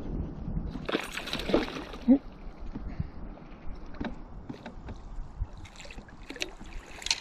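Water sloshing and splashing beside a canoe as a hooked brook trout is brought to a landing net, with a brief burst of splashing about a second in and scattered small knocks after.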